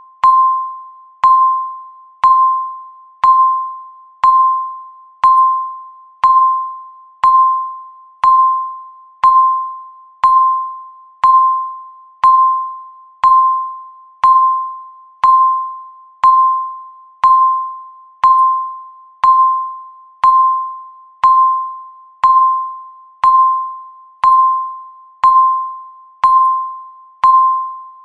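Electronic countdown-timer beep sounding once every second, the same mid-pitched tone each time, each starting sharply and fading away before the next.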